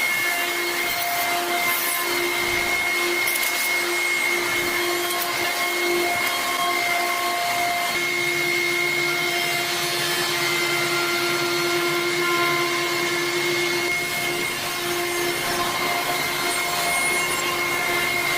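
CNC wood router carving: a steady pitched whine from the spindle over the hiss of the bit cutting wood.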